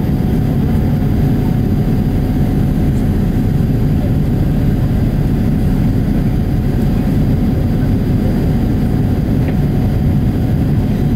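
Steady cabin noise of a Boeing 787-8 climbing after takeoff: a low, even rumble from its Rolls-Royce Trent 1000 turbofans and the airflow, with a faint steady tone running through it.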